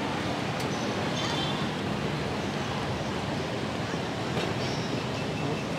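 Busy city street ambience: a steady wash of motorbike and car traffic noise, with faint voices of people nearby.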